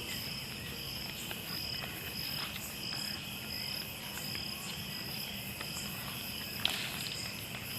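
A night chorus of crickets, a steady high trill with one insect's chirp pulsing about twice a second. A single sharp click comes about two-thirds of the way through.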